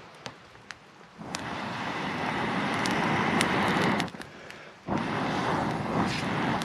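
Person blowing long, steady breaths onto a struggling fire of damp tinder to revive it: two blows of about three seconds each, with a short pause between. A few sharp clicks come before the first blow.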